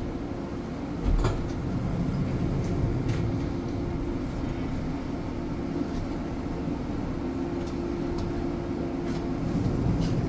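Schwebebahn suspended monorail car running: a steady rumble with a steady humming tone, and a single knock a little over a second in.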